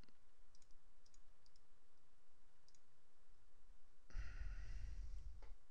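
A few faint computer mouse clicks in the first three seconds, over low room hiss, then about a second of louder low noise near the end.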